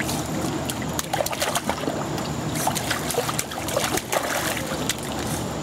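Water splashing and sloshing around a swimming dog as it is lifted and paddles, with many short irregular splashes over a steady low hum.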